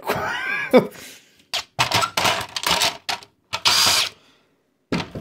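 Plastic parts of a flatbed scanner unit being worked loose by hand: a run of separate clicks and knocks as the scanner carriage and its guide rod come out of the frame, with a louder scrape about four seconds in.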